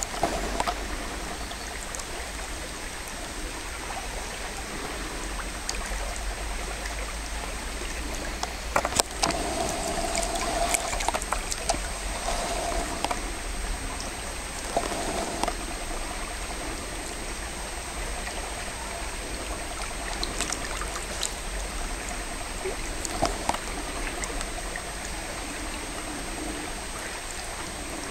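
Shallow gravel-bed stream running, a steady babble of flowing water, with a few faint clicks and a thin steady high whine over it.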